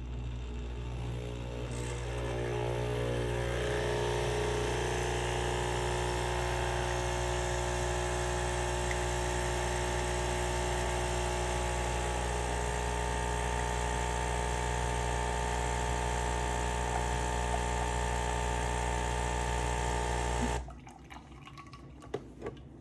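Espresso machine pump running a long shot of dissolved cleaning-tablet solution through the machine: a steady, loud humming buzz whose pitch rises slightly over the first few seconds, then cuts off suddenly about 21 seconds in.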